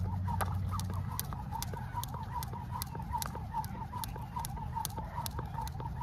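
Jump rope slapping the ground in a steady rhythm, about two and a half sharp slaps a second, with a faint, quicker high chirping running alongside.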